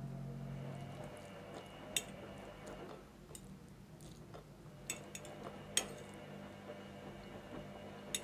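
Fork digging into a soft layered beet, vegetable and herring salad on a plate, its tines clicking sharply against the plate four times. A faint low hum drops away about a second in.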